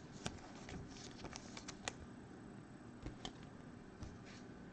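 Trading cards from a Bowman Chrome baseball pack being handled and flipped through: scattered light clicks and taps of card edges with soft rustling.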